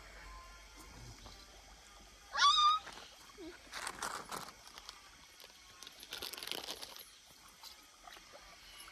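A single short, high, wavering animal cry, rising in pitch, about two and a half seconds in, followed by a few soft rustling noises.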